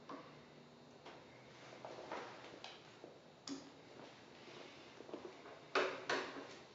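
Scattered short clicks and knocks at uneven intervals, the loudest two close together near the end.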